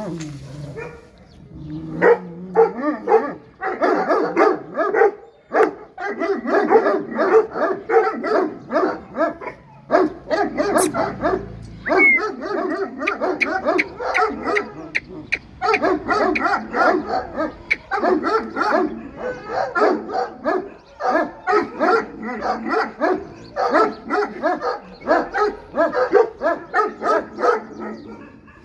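A dog barking in rapid, continuous strings, with a few short breaks.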